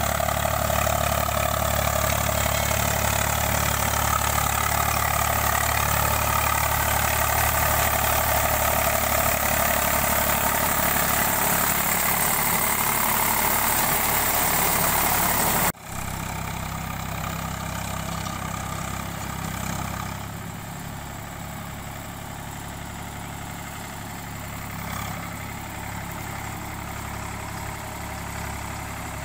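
Eicher 485 tractor's three-cylinder diesel engine running steadily as it drives a rotavator through a wet paddy field. Loud and close at first; about sixteen seconds in it cuts abruptly to the same engine heard farther off and quieter.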